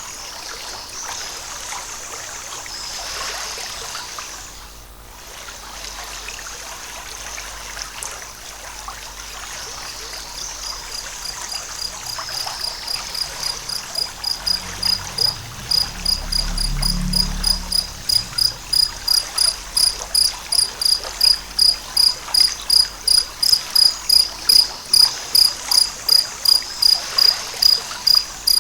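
Steady rush of a forest stream, joined about a third of the way in by a cricket-like insect chirping in a fast, even high-pitched pulse, about two to three chirps a second, growing louder toward the end. A brief low rumble about halfway.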